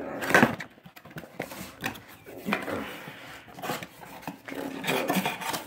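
Cardboard alarm-clock box with a plastic window being handled and turned over, giving irregular rubbing, scraping and knocking, loudest about half a second in.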